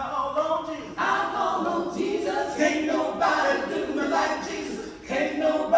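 A small gospel praise team of women's voices singing a worship song a cappella, several voices together at the microphones, with a dip about five seconds in before they come back in.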